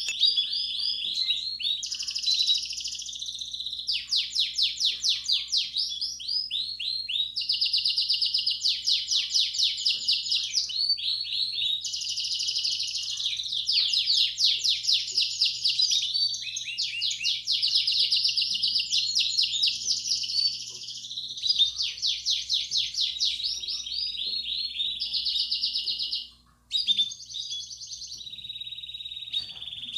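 Belgian canary singing a continuous run of rapid trills, phrase after phrase, each a second or two long and changing pitch and speed from one phrase to the next. This is the bell-like 'campainha' song used to stimulate young canaries to sing. The song breaks off for an instant about three-quarters of the way through, then resumes.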